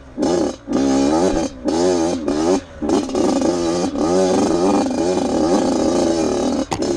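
Off-road motorcycle engine revving up and down continually under the rider's throttle, its note rising and falling, dropping out briefly several times in the first three seconds.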